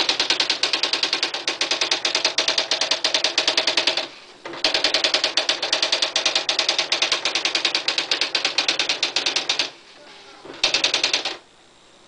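Smith Corona SD750 electronic typewriter printing a stored text from its memory on its own: a fast, even run of print strikes, about a dozen a second, that breaks off briefly about four seconds in, stops again near ten seconds, then gives one short final burst.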